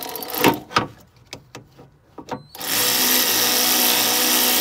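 Cordless ratchet driving in an alternator mounting bolt: a string of sharp clicks and knocks, the loudest about half a second in, then from a little past halfway its motor runs steadily as the bolt is run down.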